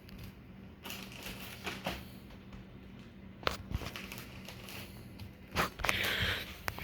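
Quiet room tone with a faint steady low hum, broken by a few scattered clicks and taps and a short hiss about six seconds in.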